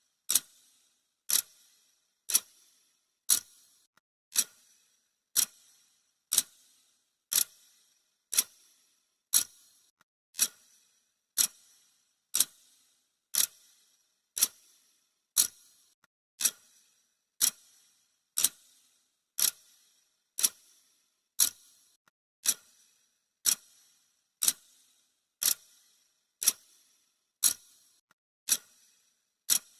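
Clock ticking sound effect: one sharp tick every second, evenly spaced, marking off the countdown.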